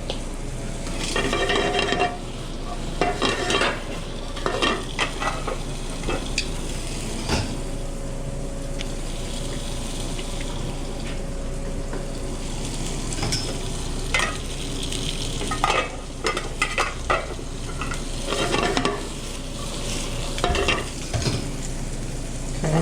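Food sizzling and frying in a pan on a restaurant cook line, with repeated clattering of metal utensils and pans every second or two over a steady kitchen hum.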